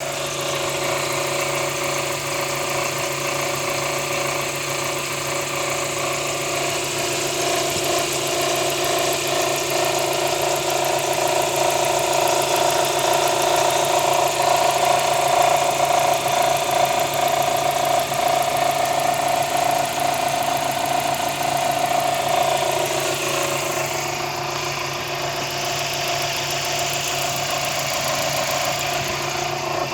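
Kia Spectra engine running steadily with an unwanted extra noise: a steady tone over the engine sound that grows louder through the middle and fades about three quarters of the way through.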